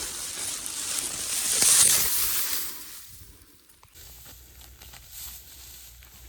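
Dry harvested wheat sheaves rustling loudly as they are handled and piled, swelling to a peak about two seconds in and dying away; after that only faint crackles.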